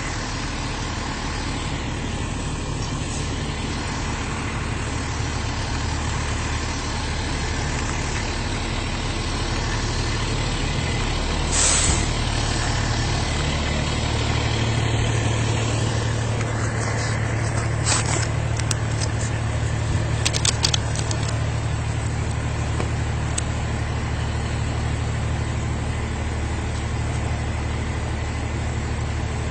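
Car engine idling steadily with a low hum, with a few brief clicks and knocks around the middle.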